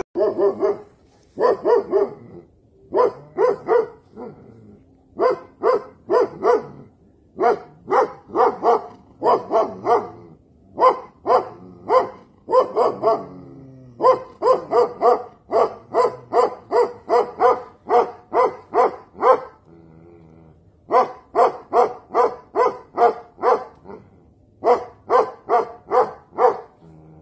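Tibetan mastiff barking over and over in quick runs of two to four barks with short pauses between runs, and one longer pause about twenty seconds in.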